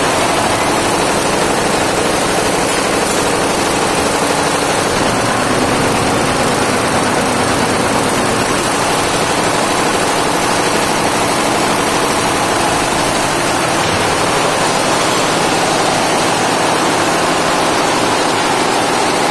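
Multi-head computerized embroidery machine running steadily, its needles stitching rapidly into fabric in a loud, even mechanical din.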